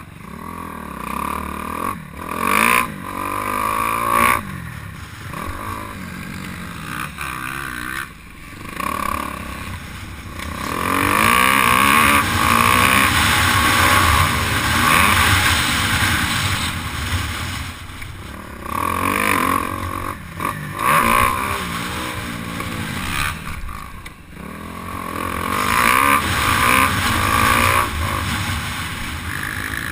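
Motocross bike engine heard from the bike itself, revving up and down as it accelerates and shifts, with several brief throttle-offs.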